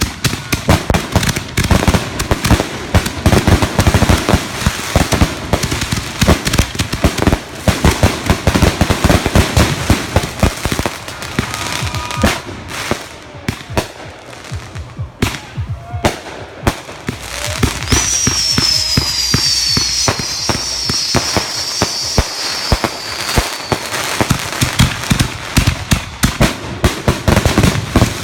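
Fireworks going off in rapid, dense crackling and banging. From about two-thirds of the way in, a high whistle slides slowly down in pitch over the crackle for several seconds.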